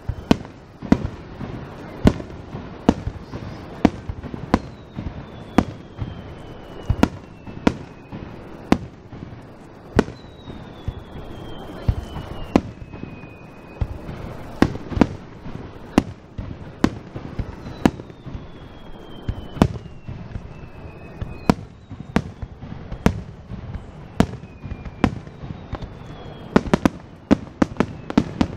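Aerial fireworks display: a steady, irregular run of sharp bangs from shells launching and bursting, about one or two a second, over a low rumble. Four long whistles fall in pitch among the bangs, and the bangs come thicker near the end.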